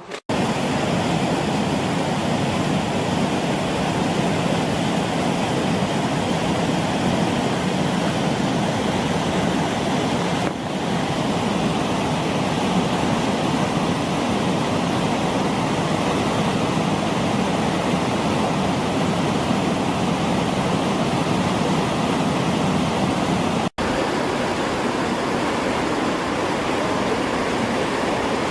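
Steady, even rush of water, broken twice by brief dropouts, about ten seconds in and again near the end.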